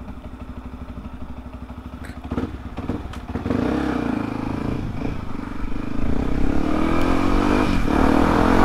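Yamaha WR155R's single-cylinder four-stroke engine idling with a steady putter, then opening up as the bike pulls away about two and a half seconds in, with a few knocks. The engine pitch rises as it accelerates and drops briefly near the end at a gear change.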